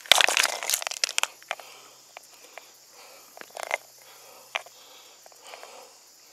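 Loose stones and gravel crunching and clattering as a hand rummages through them, densest in the first second, then a few scattered clicks of stone on stone.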